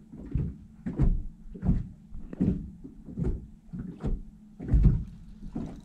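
A regular series of dull knocks, about one every three-quarters of a second, eight in all.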